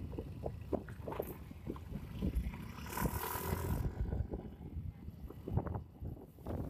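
Wind buffeting the microphone over a low engine rumble while riding, with irregular knocks and a brief hiss about halfway through.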